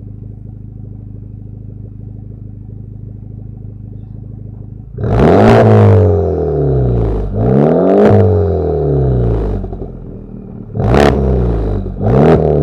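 Honda Civic Type R's turbocharged 2.0-litre four-cylinder through an aftermarket exhaust, idling steadily, then revved from standstill toward 3,000 rpm about five seconds in. The pitch rises and falls twice, followed by two short throttle blips near the end.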